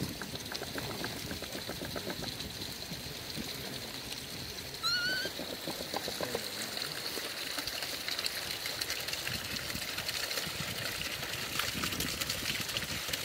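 Hot-spring water trickling and pouring steadily. About five seconds in, a Japanese macaque gives one short rising coo.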